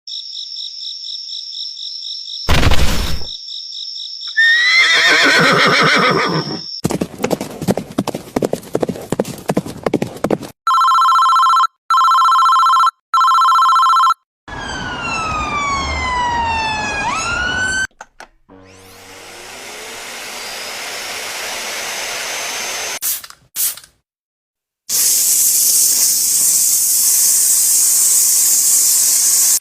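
A string of edited comic sound effects: steady high beeping, a horse whinny about four seconds in, three identical ringing beeps, several falling whistles, a rising whoosh and a long loud hiss near the end.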